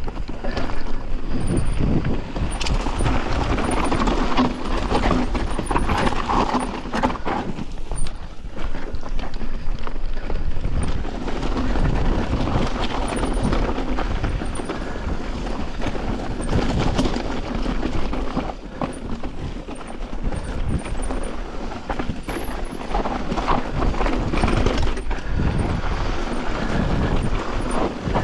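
Mountain bike descending a rocky singletrack: knobby tyres crunching over loose rock and gravel, with the bike rattling and knocking over the bumps and wind rumbling on the microphone.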